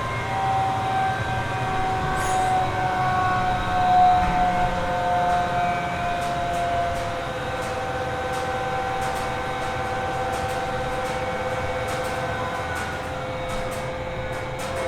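Factory machinery running: a steady whine at several held pitches over a low rumble. Faint regular ticking comes in during the second half.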